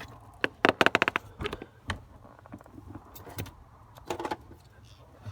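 Hands working at a car's steering-column wiring and ignition switch: a quick rattling run of about eight clicks about a second in, then a few scattered clicks and knocks.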